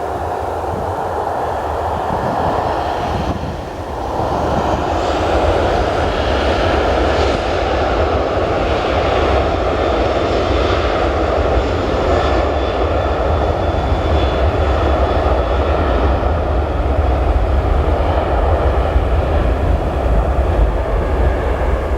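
Jet airliner's engines running loudly: a steady rush with a deep rumble underneath and a faint high whine, with a brief dip in level about three and a half seconds in.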